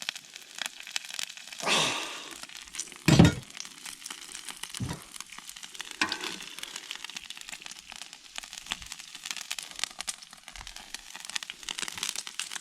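Bacon sizzling and crackling on a Blackstone flat-top griddle, a steady patter of small pops, with a couple of louder handling noises about two and three seconds in.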